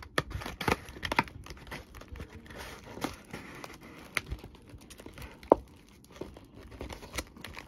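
Foil Pokémon booster pack wrappers crinkling and crackling as the packs are handled in and lifted out of an opened cardboard booster box, with scattered cardboard clicks and one sharp tap about five and a half seconds in.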